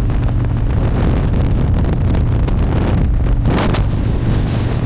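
Harley-Davidson motorcycle under way at road speed: the engine runs with a steady low rumble under heavy wind rush on the microphone, with a brief gust about three and a half seconds in.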